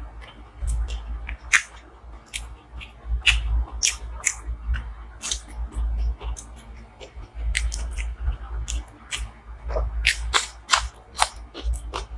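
A person chewing food close to the microphone: irregular sharp, wet clicks and crunches, a few a second, over a low steady hum.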